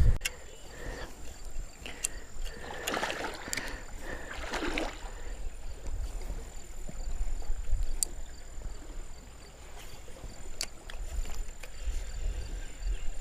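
Shallow river water sloshing and splashing, with a few sharp clicks.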